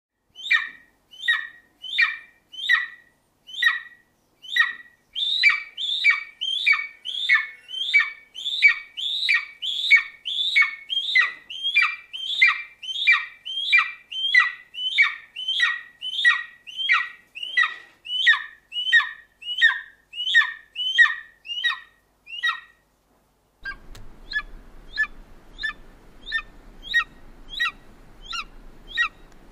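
Golden eagle calling: a long series of short, high call notes at about one and a half a second, louder after the first few notes. About three-quarters of the way in, after a short gap, a fainter series of the same kind of notes begins over a low background hiss and hum.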